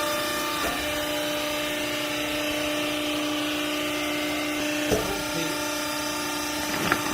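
Hydraulic clothes baler's power unit running with a steady, even whine, with a few sharp knocks, about half a second in, near five seconds in and near the end.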